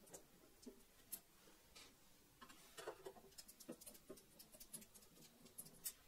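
Faint, scattered small clicks and scrapes of a hand screwdriver turning out screws from the top cover of a rack-mount cassette deck's case, against a quiet room.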